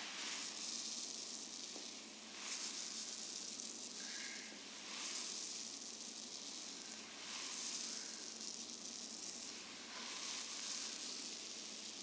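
Massage therapist's hands rubbing and sliding over bare skin in deep tissue strokes, a soft swishing hiss picked up close by the microphone that swells and fades in a slow rhythm, about once every two and a half seconds.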